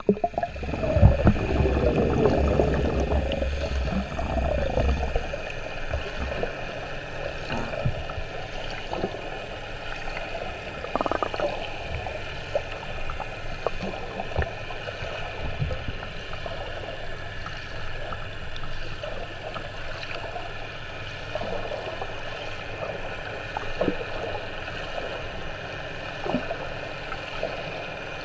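Freestyle swimming heard from underwater: a muffled, steady rush of churning water from the swimmer's strokes, with scattered small knocks and bubbling. A heavier low rumble for the first few seconds as the camera goes under.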